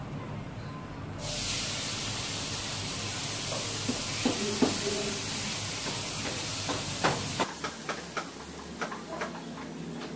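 Light wooden knocks and taps as the planks and frame of a wooden work table are handled, over a steady high hiss that starts about a second in and cuts off sharply about six seconds later.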